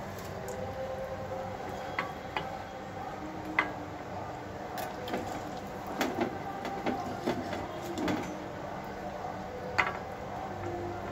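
Metal serving spoon clinking and scraping against a clay cooking pot and a ceramic serving plate as mutton curry is dished out: scattered sharp clinks, two louder ones about three and a half seconds in and near the end, over a steady background hum.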